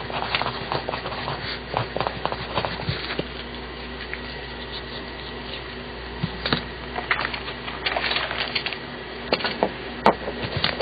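Graphite lead of a Papermate Sharpwriter mechanical pencil (0.7 mm lead) scratching across paper in short, irregular writing strokes, with a lull of a few seconds in the middle.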